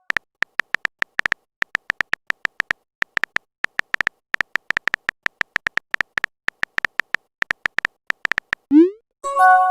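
Chat-app typing sound effect: rapid, irregular short electronic beeps at one pitch, about six a second. Near the end a short rising blip sounds, and then a chime of several tones for a message notification.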